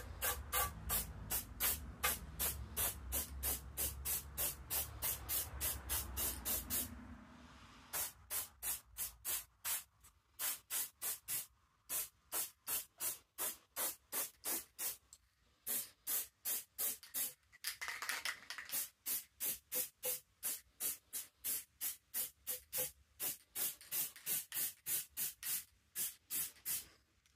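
Aerosol spray-paint can spraying in short, rapid bursts, about two to three a second with a few brief pauses, laying a first coat of paint on a bicycle frame.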